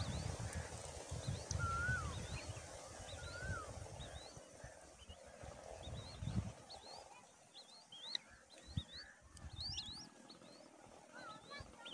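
Birds chirping: many short, high chirps repeating throughout, with a few lower slurred whistles in the first few seconds. A low rumble sits underneath early on and fades by the middle.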